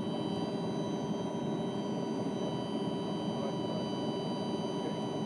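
Black Hawk flight simulator running: a steady mechanical rush with several steady, high whining tones over it.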